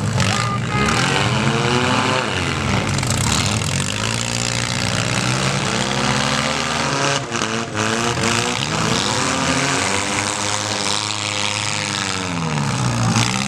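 Compact car engines revving up and down repeatedly as the derby cars drive and manoeuvre, over a steady background of other engines. Two short sharp knocks about seven seconds in.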